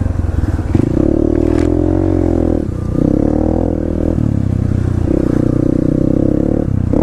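Dirt bike engine running under load, heard close from the rider's position: it revs up, backs off briefly about two and a half seconds in and again around four seconds in, then pulls again.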